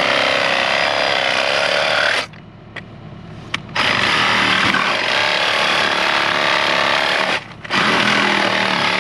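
Reciprocating saw cutting through corrugated plastic drain tile. It runs in long stretches, stopping for about a second and a half a little after two seconds in and again briefly about seven seconds in.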